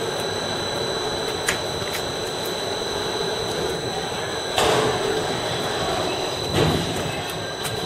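HBY-500 ring debarker running, a steady mechanical hum with a high, even whine over it. Two louder knocks come about four and a half and six and a half seconds in.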